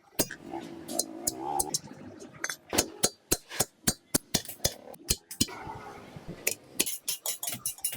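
Hammer blows on metal, sharp strikes at uneven intervals of about a third to half a second, over background music.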